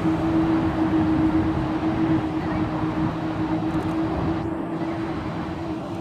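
Jet engines of a KLM Boeing 747 running as the airliner taxis: a steady rushing noise with a steady drone through it, easing off slightly toward the end.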